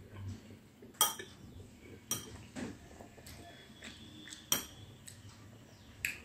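Metal spoon clinking against ceramic crockery while scooping curry: about five sharp clinks, each with a brief ring, the loudest about a second in and about four and a half seconds in.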